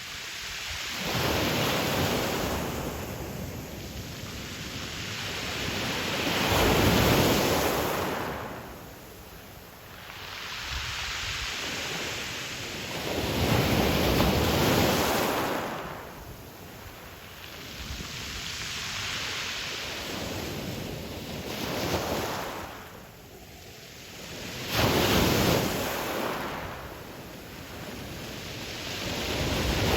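Ocean waves breaking and washing up a pebble beach, the surf swelling and falling away in repeated surges every few seconds.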